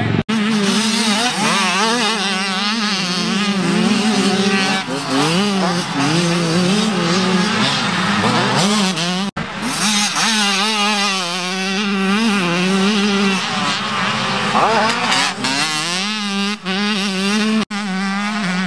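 Motocross dirt bike engines revving hard, the pitch climbing and falling as the riders open and close the throttle over jumps and through corners. The sound cuts out for an instant a few times, near the start, about halfway through and near the end.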